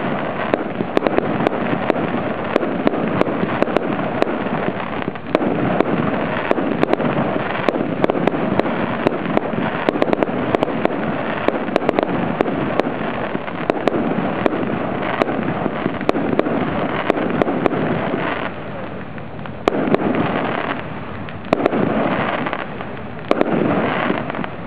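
Fireworks display: aerial shells bursting in a dense, continuous crackle studded with many sharp bangs. In the last third it eases back in short lulls between louder volleys.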